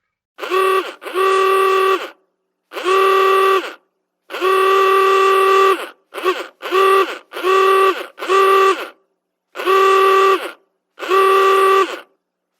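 Old car horn honking in a series of about ten blasts at one steady pitch, some short toots and some held for a second or more.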